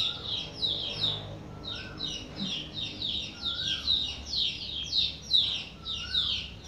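Small birds chirping steadily: a continuous run of short, high, falling chirps, about two or three a second, with a lower rising-and-falling call every couple of seconds.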